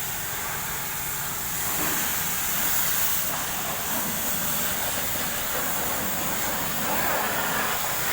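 Steady hissing spray of a high-pressure washer jet, cleaning the bus engine.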